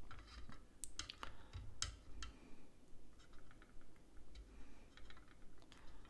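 Faint, irregular light clicks and taps of small tools and parts being handled on a repair bench.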